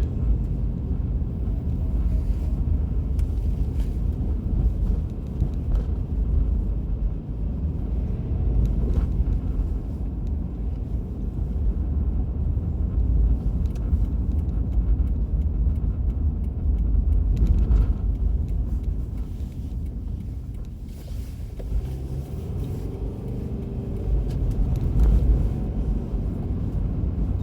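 Car interior noise while driving: a steady low rumble of engine and tyres on the road, with occasional small knocks.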